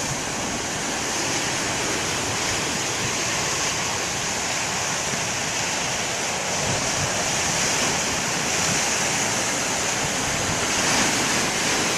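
Storm surf breaking along the shore: a steady rush of churning seawater, swelling slightly in the second half, with wind buffeting the microphone.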